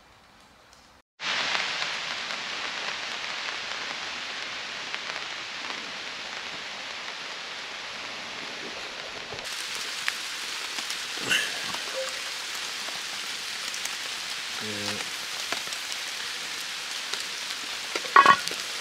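Steady rain falling, starting abruptly about a second in. A few metal clinks come from the cast-iron Dutch oven's lid and wire bail handle as it is handled, a loud double clink near the end.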